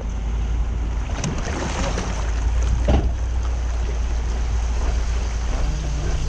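Wind buffeting the microphone on an open fishing boat in rough weather: a steady low rumble with a rushing hiss over it and a few faint knocks.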